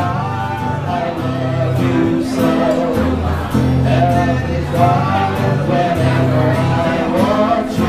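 A man singing a slow song into a microphone to an acoustic guitar, amplified through a small speaker.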